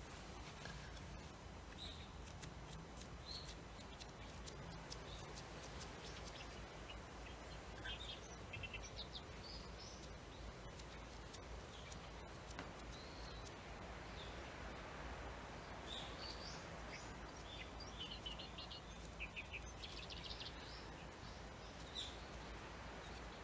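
Small birds chirping in short scattered calls and a few brief trills, over a steady low hiss.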